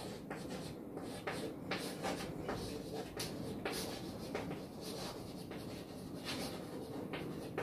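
Chalk writing on a chalkboard: a run of short scratches and taps, several a second, as words are written out.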